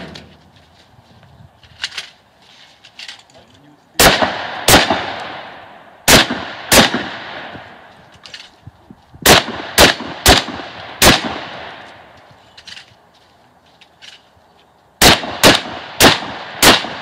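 Shotgun shots fired in quick pairs and runs of four, twelve in all, each followed by a long echoing tail. They begin about four seconds in, with faint clicks and knocks of the shooter moving before the first shot.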